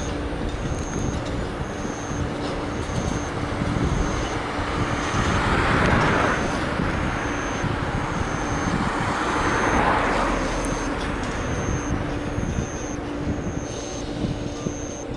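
Toyama Chiho Railway streetcar moving slowly through the depot's points and curves: steady wheel-on-rail running noise and motor sound, swelling twice. A faint high tone repeats about twice a second throughout.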